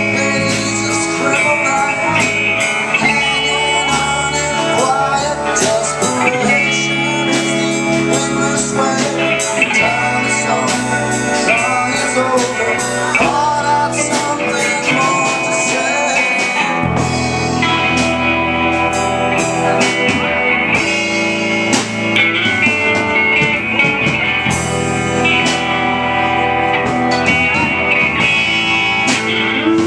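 Live rock band playing a song: electric guitars, bass, drum kit and keyboard, amplified through PA speakers.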